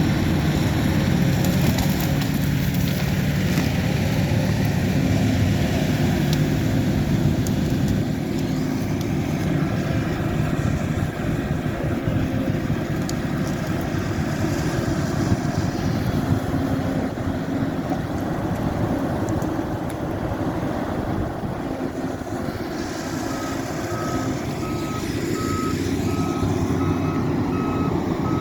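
Heavy earthmoving machine's diesel engine running steadily under work, with a rapid run of regular warning beeps from its travel or reversing alarm starting about five seconds before the end.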